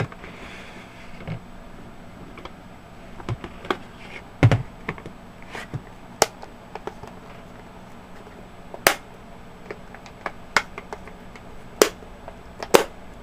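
Plastic back cover of a Centech digital multimeter being pressed and worked onto the case: a string of irregular sharp plastic clicks and knocks, a few of them louder snaps, as the cover takes some effort to snap into place.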